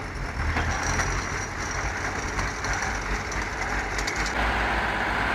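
Heavy off-road vehicle engines running steadily under load, a low rumble with mechanical clatter and hiss, as a tracked logging skidder tows a stuck loaded truck.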